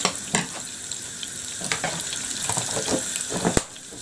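Butter melting in hot oil in a saucepan, sizzling steadily with small irregular crackles and pops. A single sharp click comes a little after three and a half seconds.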